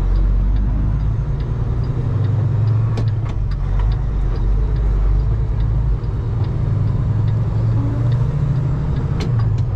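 Kenworth heavy-haul semi tractor's diesel engine running steadily under load, pulling an oversized pipe layer on a lowboy trailer, heard from inside the cab. A few light clicks and rattles sound over it.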